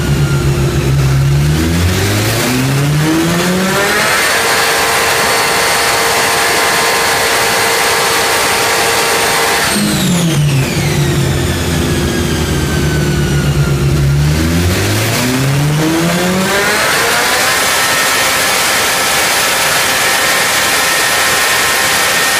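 MV Agusta Brutale 1090RR's inline four-cylinder engine with its exhaust dB killer fitted, run on a chassis dyno. Twice it climbs quickly from low revs to high revs and is held there steadily for about six seconds; between the two pulls it drops back to low revs.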